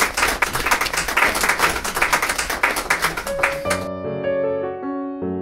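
Clapping from a small group in quick, sharp claps, cut off abruptly about four seconds in by solo piano music.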